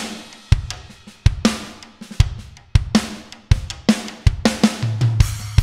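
Acoustic drum kit recording from kick, snare, overhead and room mics played back uncompressed: a steady groove of kick and snare hits with cymbals ringing over them.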